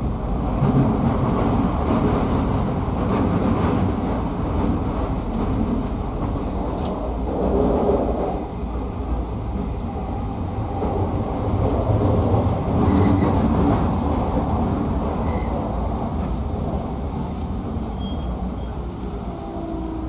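Running noise heard inside a JR East 209-1000 series electric train's motor car, MoHa 209-1004, under way: a steady rumble of wheels on rail and car body noise that rises and falls a little in loudness.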